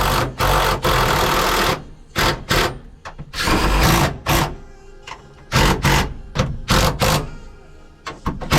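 Power drill run in several short bursts, driving in the screws that hold a hydraulic handbrake lever in place.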